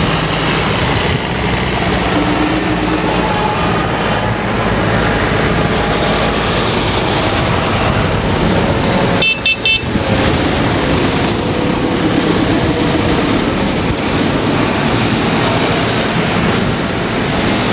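A column of large modern farm tractors passing at road speed, their diesel engines and big tyres making a steady loud rumble. About halfway through, a horn gives a quick run of short toots.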